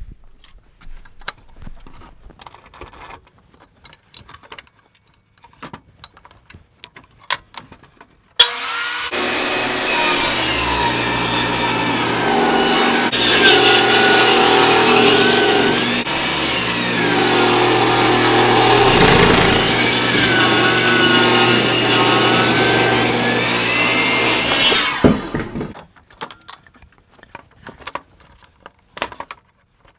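Table saw switched on about eight seconds in, its blade running and cutting along a log, the pitch sagging and recovering as the wood is fed through, then switched off about 25 seconds in. Light knocks of the log and wood being handled come before and after.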